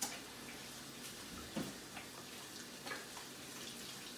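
Water running at a kitchen sink as hands are washed, with a few light knocks and clicks against the sink.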